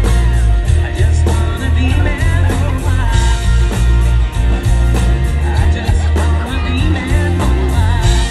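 Live country band playing, with a steady drum beat, heavy bass and strummed acoustic guitar, and a woman singing lead.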